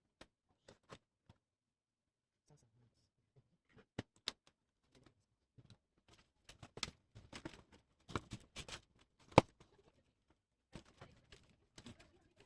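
Scattered light clicks and taps of hands and small tools working on a laptop's plastic case, sparse at first and busier in the second half, with one sharper click about nine seconds in.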